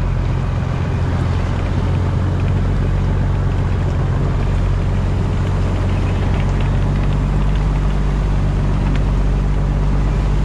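Fishing boat's engine running steadily at a constant speed, a low, even hum.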